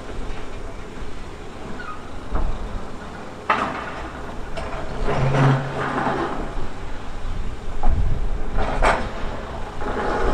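Heavy earthmoving machine's diesel engine running, with a series of sudden scrapes and clanks of metal against rock and earth, the loudest about three and a half and nine seconds in.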